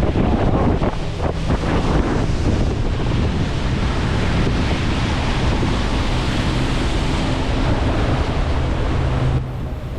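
Wind buffeting the microphone and water rushing past a moving boat, over the steady drone of the river bus's 115 hp Suzuki four-stroke outboard. Near the end the wind and water hiss drops away, leaving the engine hum.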